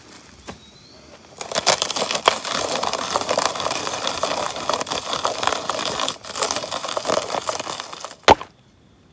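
A garlic chopper's blades crunching and rattling through peeled garlic cloves, a dense crackle that starts about a second and a half in and stops just after 8 seconds. A single sharp knock follows near the end.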